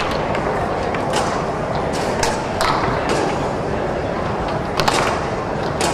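Foosball being played on a Tornado table: the hard ball cracks off the men and rods and the rods knock, in irregular sharp clicks every half second to second or so, over the murmur of a large hall.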